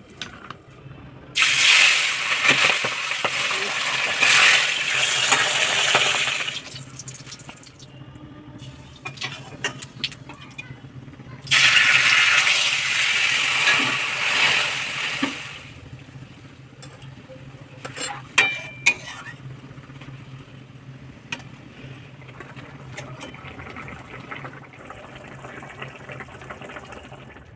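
Cooking in a pan for pabda fish in mustard sauce: two loud spells of hissing of about five and four seconds, like liquid poured into a hot pan and sizzling, then a few sharp clinks of utensils against the pot.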